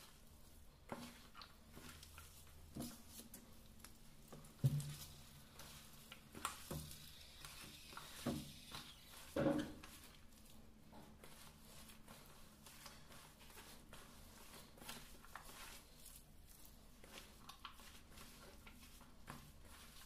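A hand squeezing and mixing shredded cabbage and potato with spices in a steel bowl for pakoda: faint rustling and squishing, with a few soft knocks against the bowl in the first ten seconds, the loudest about five and nine and a half seconds in.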